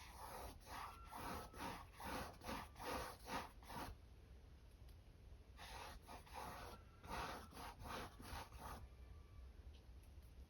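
A paintbrush scrubbing acrylic paint onto a stretched canvas in quick, short back-and-forth strokes. Two runs of strokes, with a pause of about two seconds between them.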